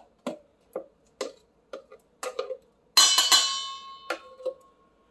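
A spoon tapping against a plastic blender cup about twice a second as thick blended onion-and-garlic paste is knocked out. About three seconds in comes a sharp clang of metal on a stainless steel mixing bowl, which rings on and fades over a second or two.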